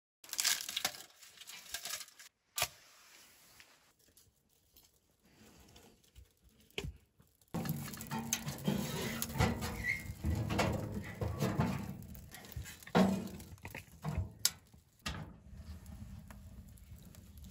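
Kindling sticks and then a split log being fed into a small metal tent wood stove: wood clattering and knocking against the stove's firebox, over the crackle of the burning fire. The knocks come thicker and louder about halfway through.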